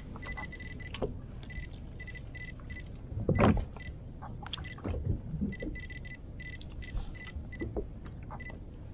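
Spinning reel cranked in short spurts, its gears whirring with a thin high whine and rapid ticking. A louder thump comes about three and a half seconds in.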